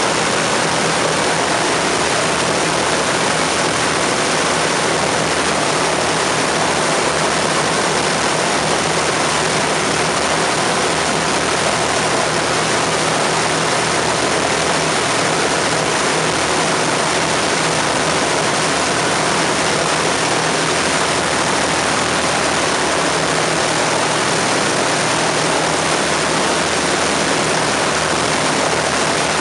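The four Merlin V12 engines of an Avro Lancaster bomber running steadily together on the ground, propellers turning, holding a constant speed with no rev-up.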